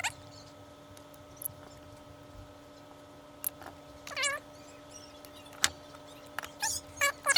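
A cat meowing in short wavering calls, one about four seconds in and a couple near the end, with two sharp clicks between them over a faint steady hum.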